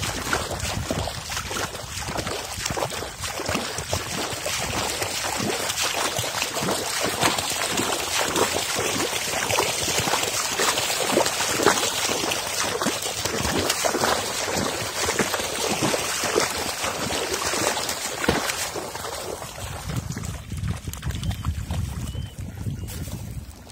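Steady splashing and trickling of water with a dense crackle, which eases off about nineteen seconds in, leaving a low rumble.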